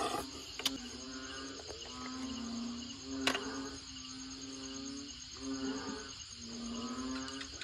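Crickets chirping steadily in fast even pulses, over a low pitched sound held in notes of about a second that change pitch. There are two sharp clicks, one under a second in and one a little past three seconds.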